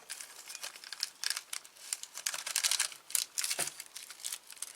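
Small plastic parts bag crinkling and rustling as it is handled, with scattered light clicks throughout.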